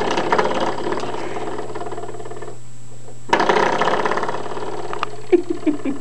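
Coiled-spring door stop flicked twice, each time twanging with a buzzing, wobbling ring that dies away over about two seconds; the second flick comes about three seconds after the first.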